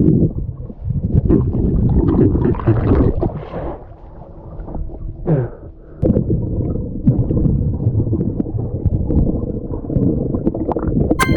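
Muffled water sloshing and gurgling around a waterproof action camera during snorkelling, rumbling in uneven surges and dipping briefly in the middle.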